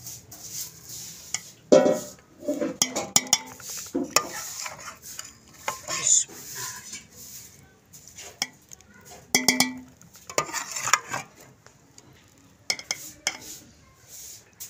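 Metal spoon clinking and scraping against steel pots, scooping chicken curry from a steel bowl and spreading it over a layer of boiled rice, with scattered sharp clinks.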